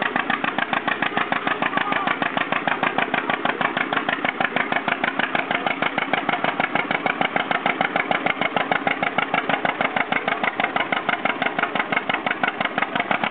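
Stock farm tractor's engine running steadily with an even, rapid pulsing beat.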